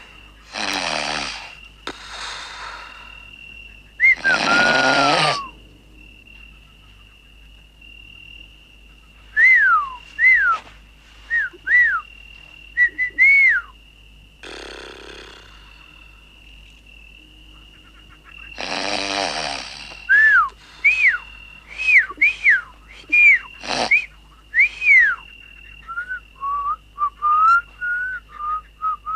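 A sleeping man snoring and whistling. A few loud rough snores come between series of short falling whistles, one after another, and near the end the whistling wavers into a little tune.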